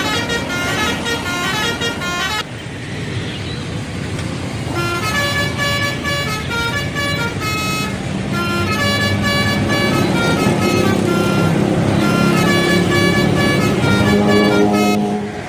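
Bus telolet horn playing quick runs of short stepped musical notes, over the low noise of the bus's engine. The notes stop about two and a half seconds in, then start again about two seconds later and play on until near the end.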